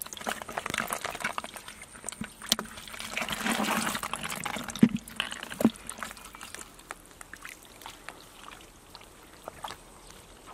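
Live catfish squirming in a plastic bucket with a little water: wet slapping and splashing with many small crackling clicks, two sharper knocks about five seconds in, and quieter sound after that.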